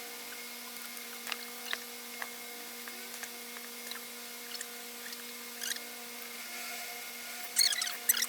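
Scattered light clicks and clinks of metal parts and tools being handled while a demolition hammer is reassembled, growing into a quicker, louder run of clicking near the end. A steady low hum runs underneath.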